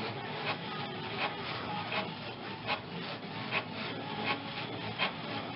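Inkjet printer printing a page, its print head shuttling back and forth across the paper as the sheet feeds out, with a short stroke about every three-quarters of a second.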